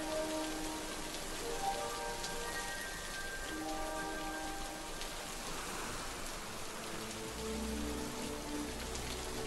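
Steady rain falling, with soft film-score music underneath: slow sustained notes in the first half, then lower notes and a deep bass note coming in near the end.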